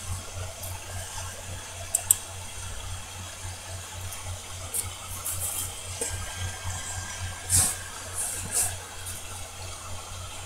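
Faint background room tone picked up by a recording microphone: a steady low electrical hum with a light hiss. A few short, faint clicks come through, a pair about two seconds in and two more near the end.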